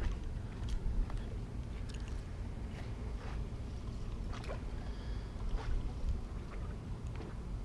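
Low wind rumble on the microphone, with scattered light clicks and ticks from an Okuma Tundra spinning reel as its handle is turned.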